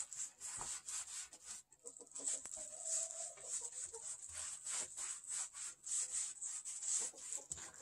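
Cloth in a gloved hand wiping across the face of a planed wooden board in quick, repeated back-and-forth strokes, a dry hissing rub.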